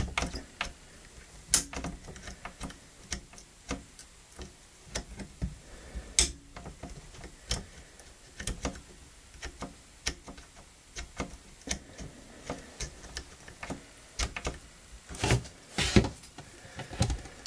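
Irregular light metallic clicks and scrapes of a steel dental pick working inside a Remington Model 58 shotgun's bolt, pulling back the spring-loaded extractor plunger. A few louder knocks come near the end.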